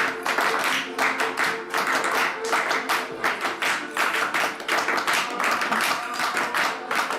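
Music with a dense run of sharp percussive claps and taps, many strikes a second.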